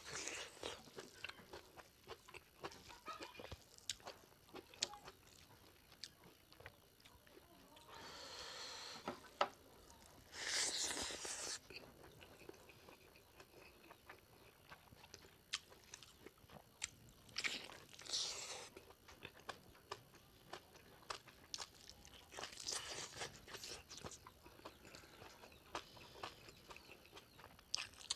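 Close-up chewing and biting while eating pork leg curry: many small wet mouth clicks and crunches, with a few louder bursts of noise of about a second each.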